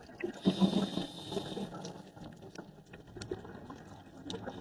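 Scuba regulator breathing underwater: a hiss of air through the regulator lasting about a second, starting about half a second in, with burbling bubbles and scattered sharp clicks and pops afterward.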